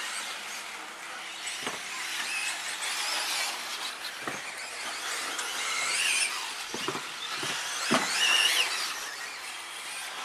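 Several 2WD RC off-road buggies running the course, their motors whining at high pitch and rising and falling as they accelerate and brake. A few short knocks of the buggies landing and hitting the track, the loudest about eight seconds in.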